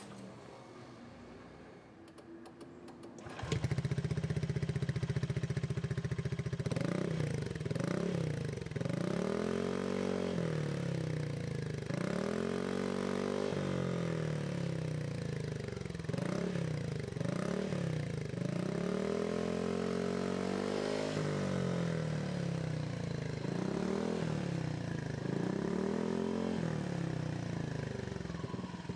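Honda PCX125 scooter's 125 cc single-cylinder four-stroke engine, breathing through an IXIL twin-outlet aftermarket silencer, starts up about three seconds in and idles briefly. It is then revved up and let back down again and again, a blip every second or two.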